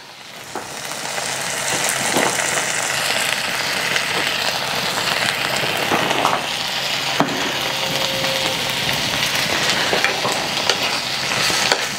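Chopped tomato with onion, garlic and chile sizzling in a hot frying pan, the sizzle swelling over the first couple of seconds and then holding steady, with a few light knocks.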